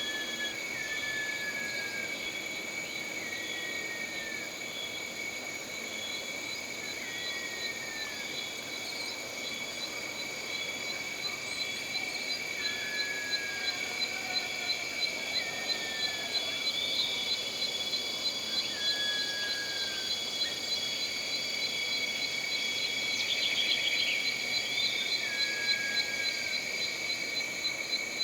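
Jungle insect chorus holding several steady, shrill high tones. Short falling whistled calls come every couple of seconds. About twelve seconds in, a rapidly pulsing high-pitched call joins, with a brief rattling trill near the end.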